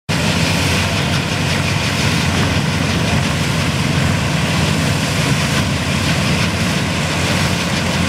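John Deere 45 combine running steadily while it harvests wheat, its engine and threshing machinery making a loud, even drone.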